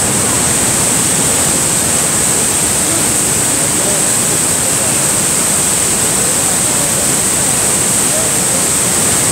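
Niagara Falls: a steady, loud roar of water pouring down and crashing onto the rocks close by.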